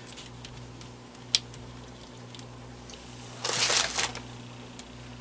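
Small parts and tools being handled while a replacement motor is fitted into a plastic personal fan: a sharp click about a second in and a brief rustling clatter near the end, over a steady low hum.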